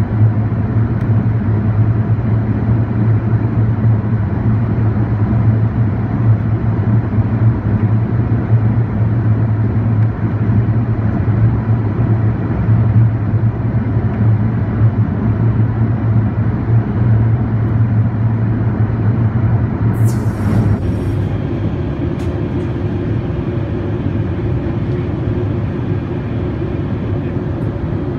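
Steady cabin drone of an Airbus A380 in flight, engine and airflow noise with a strong low hum. About twenty seconds in it switches abruptly, with a brief click, to a slightly different steady cabin drone.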